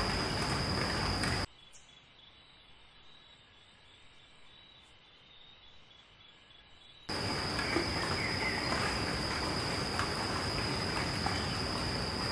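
Outdoor ambience: a steady high-pitched insect drone over a rushing hiss. It cuts out abruptly about a second and a half in, leaving a quiet stretch with only a faint thin high tone, and cuts back in about seven seconds in.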